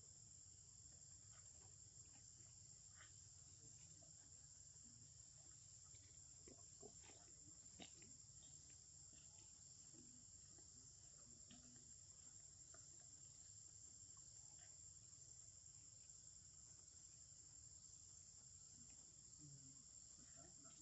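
Faint, steady high-pitched chirring of insects, with a few soft ticks about a third of the way in.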